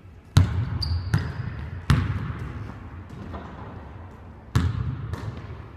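Basketball banging off a gym wall and bouncing on the hardwood court: several sharp bangs that echo in the hall, the loudest shortly after the start, about two seconds in and near the end.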